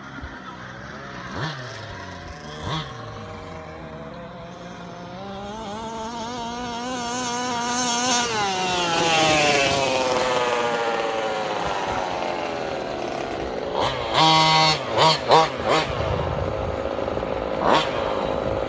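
Small two-stroke petrol engine of an FG 2WD radio-controlled monster truck running. Its revs climb steadily to a peak about eight seconds in and then ease off. Several short, sharp throttle blips follow around fourteen to sixteen seconds, and one more near the end.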